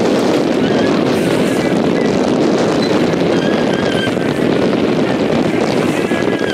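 Steady wind buffeting the microphone over the rush of water past the hull of a sailboat under way.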